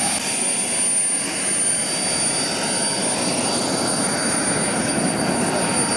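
PST 600R model jet turbine in a Falcon 120 RC jet running at a steady speed: a rushing blast with a steady high whine on top.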